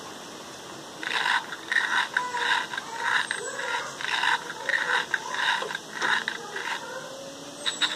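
LEGO Mindstorms EV3 puppy robot's brick speaker playing a dog sound effect: a run of short, scratchy puffs, roughly two a second, starting about a second in and stopping shortly before the end.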